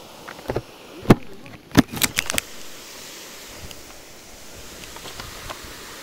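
A handful of sharp clicks and knocks in the first two and a half seconds, the loudest about a second in and just under two seconds in, then a quick cluster of lighter ones, over a steady hiss.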